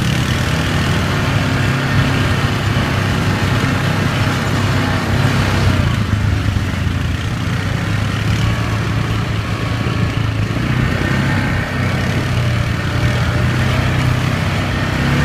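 ATV engines running steadily while riding along a dirt trail, a low, even engine drone with only slight changes in speed.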